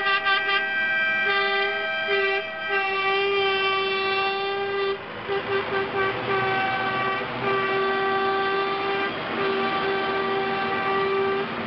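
Vehicle air horns blowing long held blasts and short toots at several different pitches, over the diesel engines of tractors driving past.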